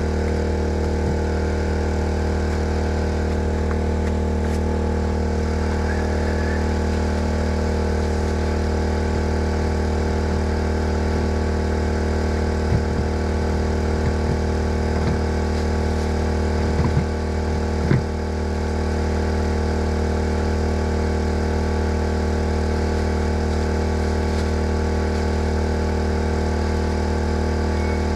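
Portable generator engine running steadily, with a few short knocks and clatters around the middle.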